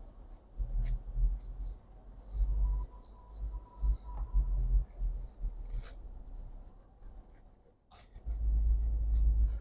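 Fingers tapping and rubbing on a MacBook Air's keyboard and trackpad: scattered light clicks and rustling, with repeated low bumps from handling; the loudest bump comes near the end.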